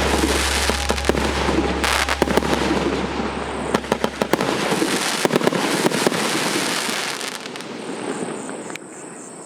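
A 100-shot, 1.2-inch firework cake firing its last shots: rapid bangs and dense crackling that thin out and fade near the end.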